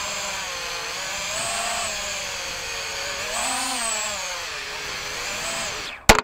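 Small camera drone's motors and propellers buzzing in flight, the pitch wavering and rising briefly about halfway through. Near the end it drops onto a porch floor with a few quick knocks and the motors stop.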